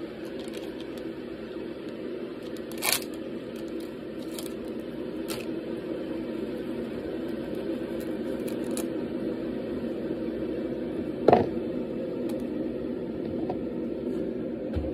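Steady rushing hum of a kettle heating up, slowly growing louder. Over it, a tea packet rustles and is torn open in a few crisp clicks and rips, with one sharp knock about eleven seconds in.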